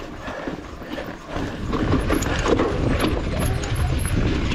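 Mountain bike riding over rock, with tyres and bike rattling, clicking and knocking. A heavy wind rumble on the microphone builds about a second in as the bike picks up speed.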